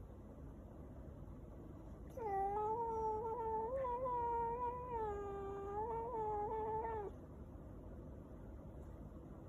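Sleeping domestic cat letting out one long, wavering yowl lasting about five seconds, starting about two seconds in; the owner takes it for a cry from a bad dream.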